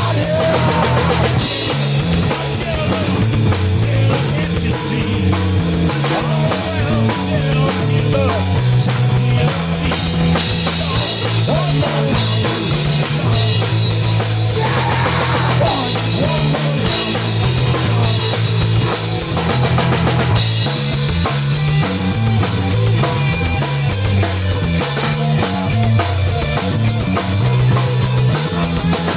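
Live rock band playing with a full drum kit and bass keeping a steady beat, and guitar lines on top.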